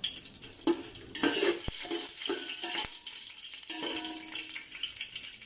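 Whole spices (cinnamon, cardamom, cloves and bay leaf) sizzling in hot ghee and oil in a pot: a steady hiss with a few sharp clicks.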